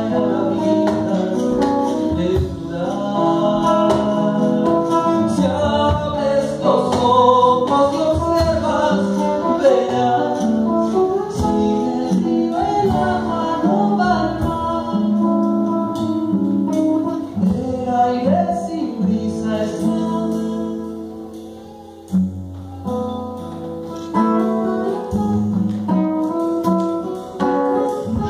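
Live song: an acoustic guitar played with a voice singing over it. The music dips briefly about 21 seconds in, then the guitar carries on.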